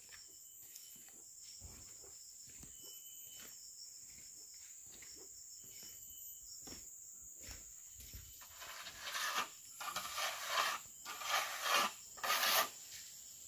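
Steady high insect drone with faint chirps; about two-thirds in, a run of rasping scrapes as a metal trowel spreads filler over the bare concrete base of a wall.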